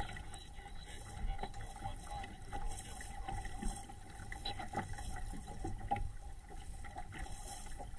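Water rushing and splashing along the hull of a small SCAMP sailing dinghy under way, with a low rumble of wind on the microphone and a steady thin whine.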